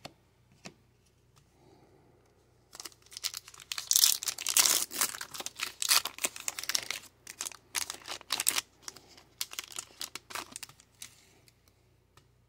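A foil trading-card pack being torn open by hand, with the wrapper crinkling and crackling. It starts about three seconds in, is loudest over the next few seconds, and dies away near the end.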